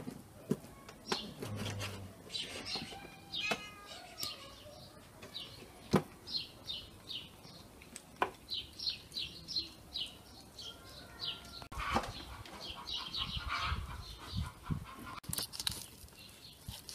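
Birds chirping in quick runs of short high notes, with a few falling calls, and a few sharp knocks in between.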